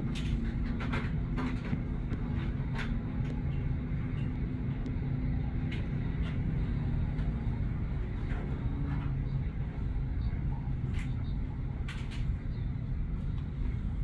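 2013 Bell helicopter's turbine engine and main rotor running on the helipad: a steady low rumble.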